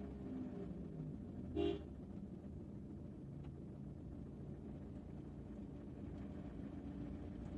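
A short vehicle horn toot about a second and a half in, over the low steady rumble of an idling car heard from inside the cabin.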